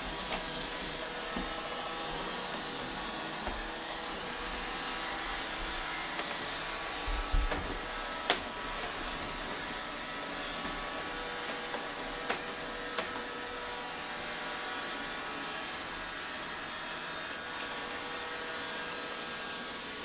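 iRobot Roomba robot vacuum running with a steady whir from its motor and brushes. A few sharp knocks and clicks break in now and then, the loudest about seven to eight seconds in.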